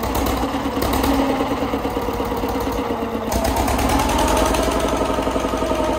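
A boat's engine running steadily with a fast, even chugging, driving the boat along a narrow creek.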